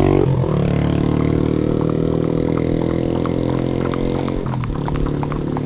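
Small motorcycle engine running close by as it passes, its pitch dropping at first and then holding steady for about four seconds. Short sharp clicks from horse hooves on the asphalt come through underneath.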